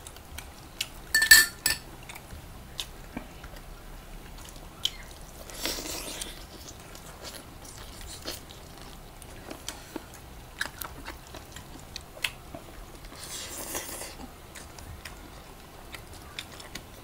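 Close-up eating sounds of people chewing chicken adobo taken by hand: scattered wet mouth clicks and smacks, with a louder cluster of clicks about a second in and two brief hissy rustles near the middle and later on.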